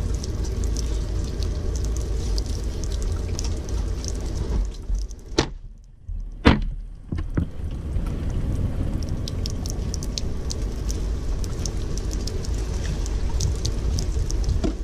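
Water spraying and dripping onto a cutting table while fish are cleaned, a steady splashy hiss with scattered sharp ticks of drops. It falls away for about two seconds a little before halfway, broken by two sharp clicks, then carries on.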